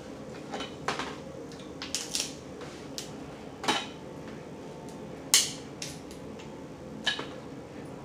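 Crab leg shell being snapped and cracked apart by hand: about six sharp cracks and clicks spread through, the loudest about five seconds in.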